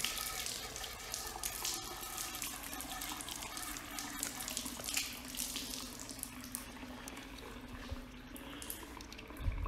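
Water running from a hose and splashing over a plastic water-softener strainer basket as it is rinsed clean. A faint steady low hum lies under it through the middle.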